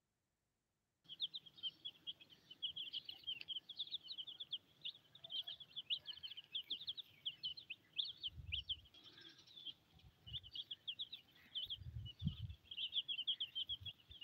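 A brood of silkie chicks peeping continuously, many quick high chirps overlapping, starting about a second in. Two low muffled thumps on the microphone come around the middle and a little later.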